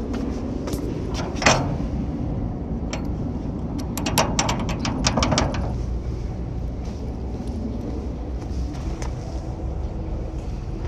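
Metal clicks and a short run of quick rattling clacks from a shipping container's door latch and seal being fastened: one sharp click about a second and a half in, then a burst of clacking about four seconds in. A steady low rumble runs underneath.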